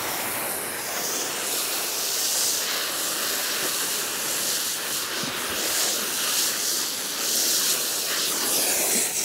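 Garden hose spray-gun nozzle hissing steadily as its spray waters the bare soil of a raised bed.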